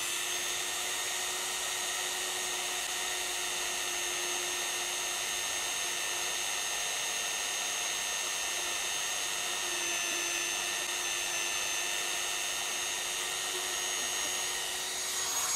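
High-speed rotary tool running steadily while it spins a length of ABS 3D-printing filament against a cracked ABS fairing. The friction melts the filament into the crack. It makes a steady high whine, which dips slightly in pitch for a few seconds about two-thirds of the way through as the tool is loaded.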